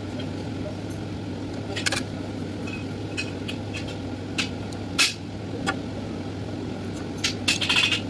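TIG welding arc on stainless steel with 308L filler: a steady hiss over an even low hum, broken by scattered sharp clicks and crackles that cluster near the end.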